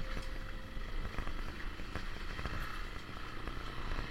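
Small motorcycle's engine running steadily while riding a rough dirt trail, with a low rumble of road and wind noise and a few faint clicks and knocks.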